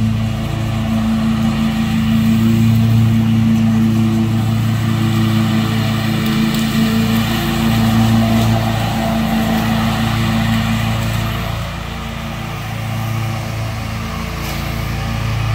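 Stand-on zero-turn mower's engine running at a steady throttle while mowing, a constant hum that swells and eases slightly without changing pitch.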